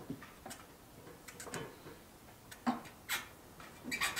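Light, irregular clicks and taps from hands working the rear wheel and axle hardware of a moped, about ten small ticks at uneven spacing, a few bunched together in the middle and near the end.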